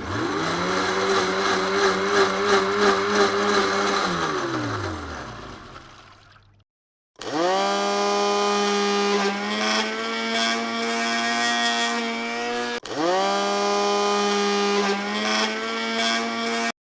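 Electric blender motor running. It spins up, holds a steady whine, then winds down with a falling pitch about four to six seconds in. After a short gap it starts again quickly and runs steadily, dips and spins straight back up about two-thirds of the way through, then cuts off suddenly near the end.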